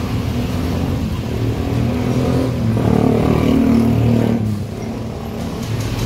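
A moving car's engine and road noise. It swells about three seconds in and eases off again about a second and a half later.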